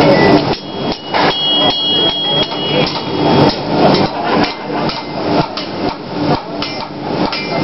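Blacksmiths' hammers striking hot iron on steel anvils, a run of blows about two or three a second. Some blows leave a high metallic ring, clearest about a second in.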